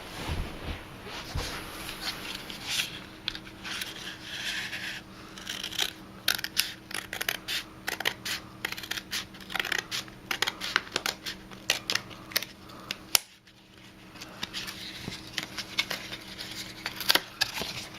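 Scissors cutting open a paperboard box, with repeated sharp snips and rustling and scraping of the board between cuts. There is a brief lull about two-thirds of the way through.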